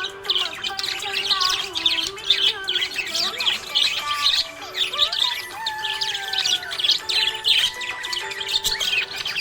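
Budgerigars chirping and warbling in a rapid, continuous stream of high chirps. Steady held tones of background music run underneath.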